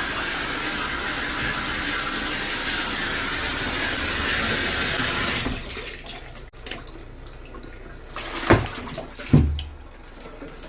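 Steady rush of water in an Auertech portable twin-tub washing machine, which cuts off a little past halfway. Two sharp knocks follow near the end.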